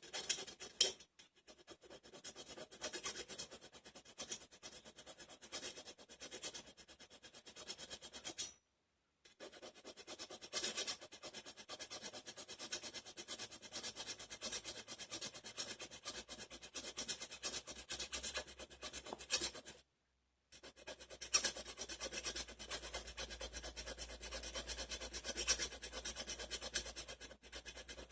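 A metal grass-cutter blade being sharpened by hand, rapid back-and-forth scraping strokes of a file or stone on the steel edge. The scraping stops briefly twice, and a low hum comes in under it during the second half.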